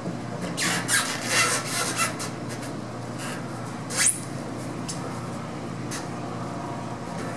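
Metal fuel-tank sending unit and pickup tube being handled and fitted on the tank: a second or so of rubbing and scraping near the start, then a sharp click about four seconds in and a couple of lighter clicks after, over a steady low hum.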